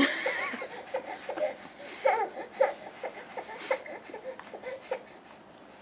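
A crawling baby making short, repeated voice sounds, giggling and babbling, that stop about five seconds in.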